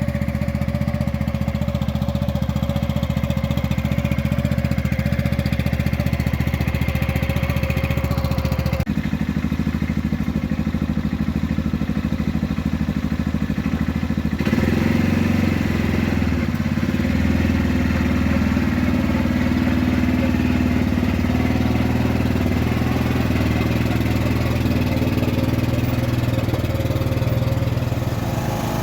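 Small engine of a homemade mini excavator running steadily. Its note changes about nine seconds in and again around fourteen seconds in, and it is a little louder after the second change.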